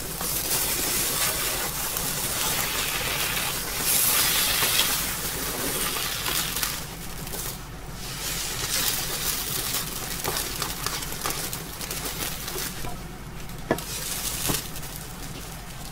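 Beaten eggs sizzling in a small non-stick frying pan while a plastic slotted spatula turns and rolls the omelette. The sizzle is loudest around four to five seconds in and eases after, with a few sharp taps of the spatula on the pan near the end.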